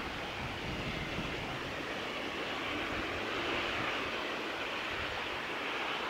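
Steady, even rushing outdoor ambient noise with no distinct events.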